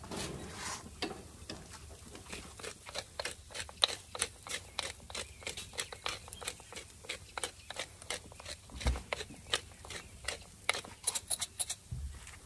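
Hand-twisted spice grinder grinding seasoning over food: a long run of crisp crunching clicks, several a second, as the grinder is turned back and forth.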